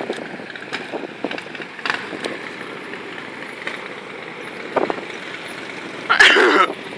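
Steady engine and tyre noise of police patrol cars rolling slowly past, with a few light knocks. Near the end comes one short, loud cry whose pitch bends up and down.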